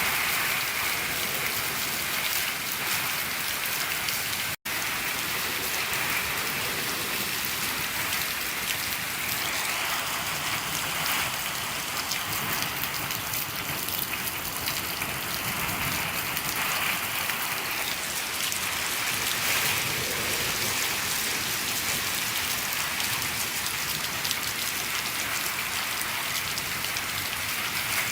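Steady, heavy rain falling on a shed roof: a dense, even patter throughout. The sound cuts out for an instant about four and a half seconds in.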